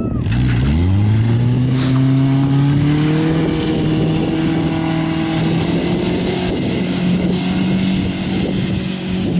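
Compact pickup truck's engine revving up over the first few seconds, then held at high, steady revs as the truck drives off.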